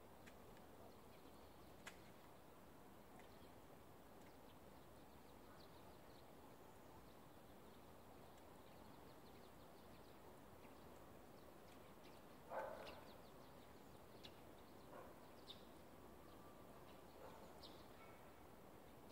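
Near silence: faint outdoor ambience, a steady low hiss with a few faint ticks and short faint bird chirps, and one brief louder sound about twelve and a half seconds in.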